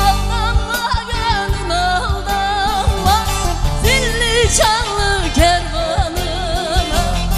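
Turkish folk song (türkü) with a solo voice singing an ornamented, wavering melody over instrumental accompaniment and a steady beat.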